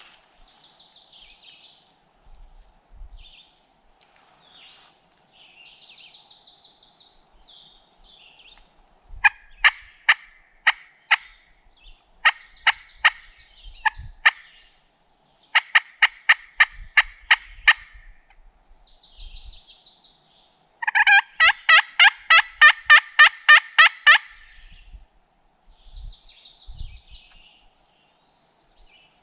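Hand-worked friction turkey call (pot-type, played with a wooden striker) yelping like a hen. There are four runs of six to eight yelps, and the last is a faster, louder run of about a dozen.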